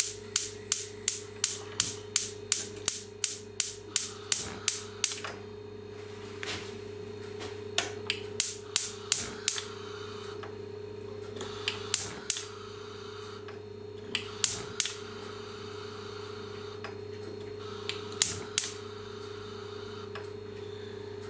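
Spark igniter on a gas hob clicking over and over while trying to light the burners: a rapid run of about three clicks a second, then scattered short runs of clicks from about six seconds in. A steady low hum runs underneath.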